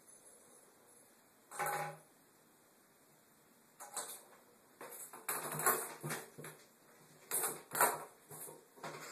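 Ping pong ball clattering and skittering around inside a bathtub as a kitten bats it: a short run of rapid clicks about a second and a half in, a quiet stretch, then busy, irregular clatter from about four seconds on.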